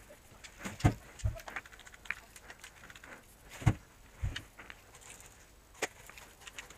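Irregular knocks, clicks and light rattles of gear and handling as a player moves about inside a wooden-walled camper trailer, with two louder thumps about a second in and near the middle.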